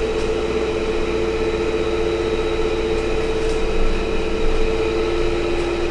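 Steady mechanical hum of a running motor, holding two constant tones, with a few faint ticks.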